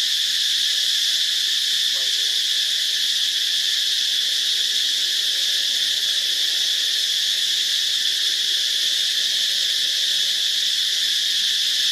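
Insects droning: a steady, high-pitched shrill that goes on without a break or change in pitch.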